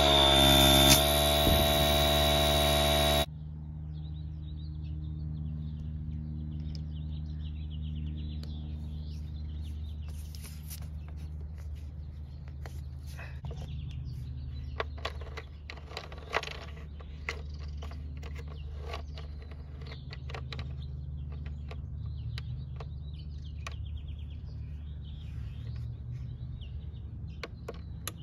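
DeWalt 20V cordless tire inflator's compressor running with a steady whine, cutting off abruptly about three seconds in. A low steady hum follows, with faint scattered clicks and chirps.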